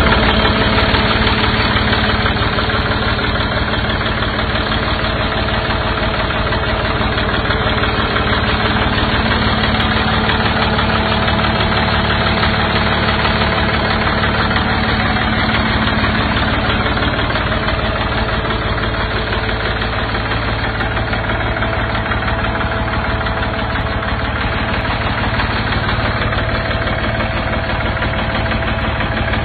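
Ford 3600 tractor's three-cylinder diesel engine idling steadily at an even speed.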